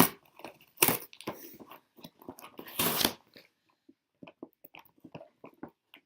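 Doll-outfit packaging being handled and pulled apart by hand: sharp rustles at the start, about a second in and around three seconds in, then lighter clicks and taps.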